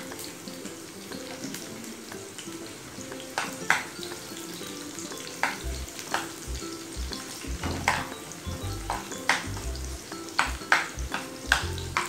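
Garlic and chili sizzling in oil in a frying pan, with a metal spoon stirring and scraping the pan in irregular clicks and taps. Some dull low thumps join in the second half.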